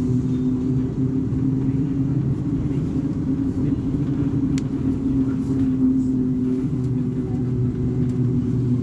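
Volvo B58 bus's six-cylinder diesel engine running at a steady speed, with an even, unchanging pitch.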